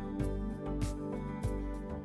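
Background music with a steady beat and held guitar-like notes.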